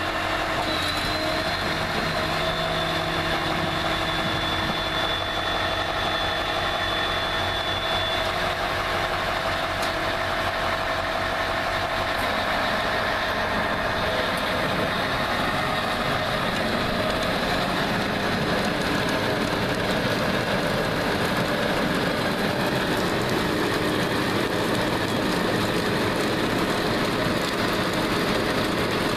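Ropa Tiger self-propelled sugar beet harvester running under load: a steady mix of diesel engine and conveyor noise, with a few held whines that fade out during the first half. In the second half, sugar beets pour from its unloading elevator onto the heap in a continuous clatter.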